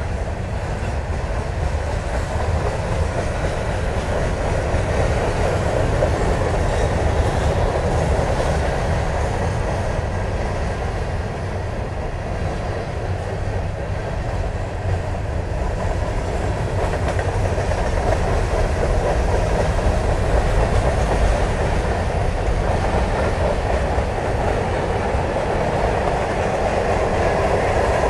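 Freight cars rolling past: a steady rumble of steel wheels on the rails, swelling a little near the end.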